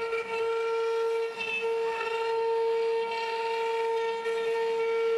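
ShopBot Desktop CNC router's spindle running with a steady high whine and overtones while its 1/8-inch tapered ball-nose bit carves a shell shape into an American holly blank.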